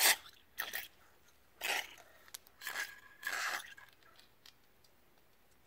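Aerosol carburetor cleaner sprayed through a red straw into a snowmobile carburetor's ports in short hissing bursts, about five over the first four seconds, flushing the fuel passages clear.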